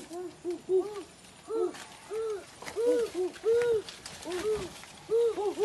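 A rapid, irregular series of short hooting animal calls, each rising and then falling in pitch, some overlapping as if from more than one animal.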